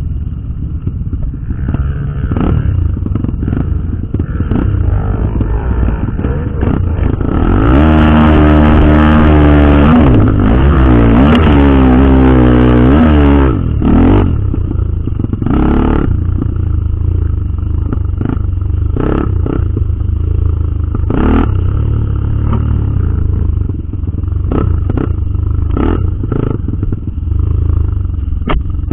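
Dirt bike engine running on a trail ride, revs rising and falling. It gets louder and revs harder for several seconds from about a quarter of the way in, with scattered knocks and clatter throughout.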